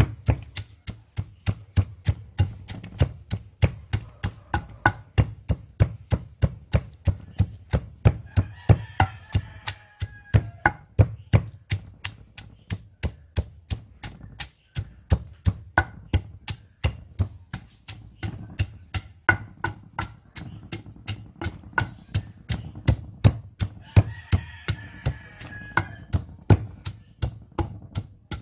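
Long wooden pestle pounding garlic, garcinia, pepper and cinnamon in a stone mortar, with a steady rhythm of dull thuds at about three strikes a second.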